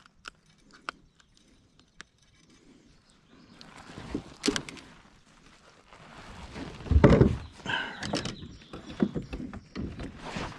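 A few light clicks, then scuffing and a run of dull thumps and knocks from things being handled in a kayak, loudest a little past the middle.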